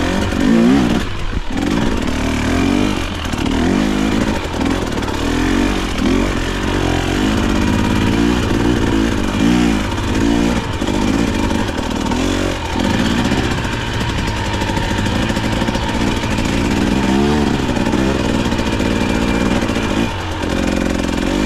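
KTM dirt bike engine revving up and down over and over as it is ridden, its pitch rising and falling with each twist of the throttle.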